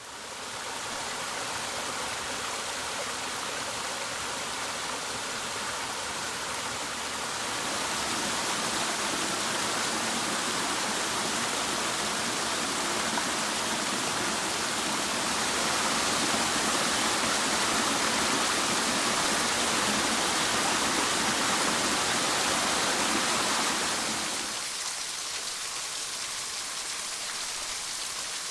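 Steady rush of a small woodland waterfall running at low flow. It grows louder about a quarter of the way in and drops back abruptly a few seconds before the end.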